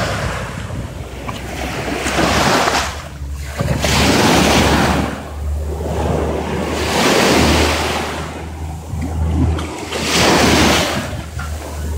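Small sea waves breaking and washing up the sand at the water's edge, the rush swelling and fading every two to three seconds, with wind buffeting the microphone in a steady low rumble.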